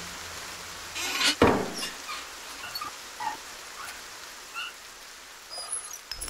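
Satellite dish movement sound effects: two quick knocks about a second in, then scattered small squeaks and ticks over a faint hiss as the dish shifts on its base. A fading music note can be heard at the start.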